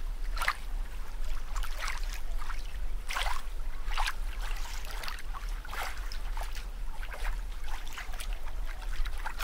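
Water sound effect: irregular short bubbling and dripping blips, about one or two a second, over a steady low hum.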